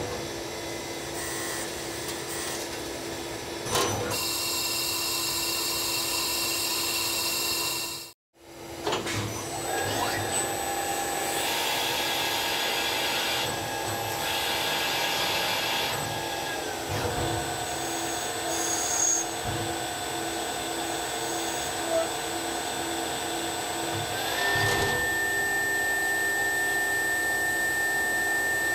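Citizen Cincom B16E sliding-headstock CNC automatic lathe drilling and grooving a brass workpiece: steady machine running noise with whining spindle tones that shift in pitch as operations change. It cuts out suddenly for a moment about eight seconds in, and a higher steady whine comes in after about twenty-four seconds.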